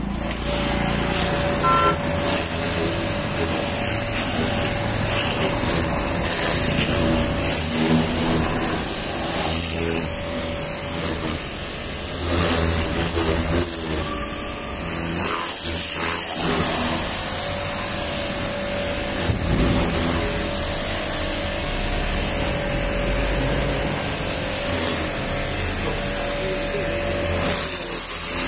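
Pressure-washer jet spraying water at close range onto a car's bumper, wheel arch and side sill: a loud, steady hiss of water that shifts as the jet moves over the panels, with a steady hum underneath.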